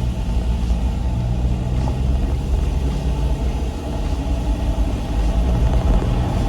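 A car's engine and road noise heard from inside the cabin while driving: a steady low rumble.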